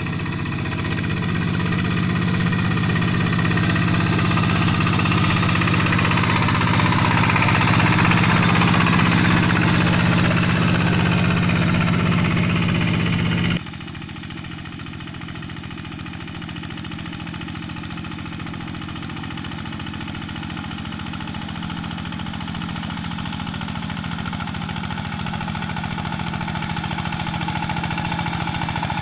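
Diesel engine of a Quick G1000 hand tractor running steadily under work. About halfway through, the sound changes abruptly to a quieter, duller engine sound that slowly grows louder.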